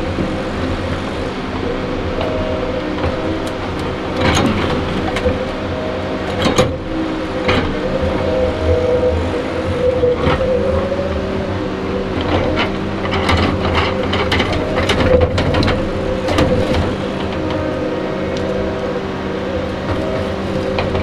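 Diesel engine of a Tigercat 234B log loader running steadily under hydraulic load, with sharp wooden knocks and clunks as logs are set down on the log truck's trailer, several of them close together in the second half.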